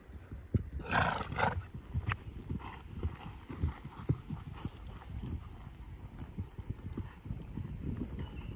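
Ridden dressage horse's hooves striking a sand arena, a steady run of dull thuds, with a loud double rush of breathy noise about a second in.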